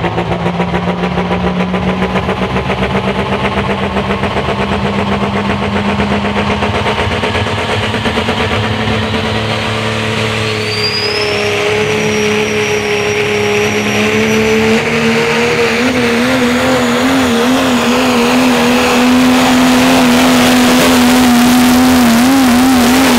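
Pro stock diesel pulling truck, a Dodge Ram, running flat out while dragging a weight-transfer sled. The engine note climbs slowly in pitch and grows louder over the run, wavering near the end, with a high whistle rising about halfway through.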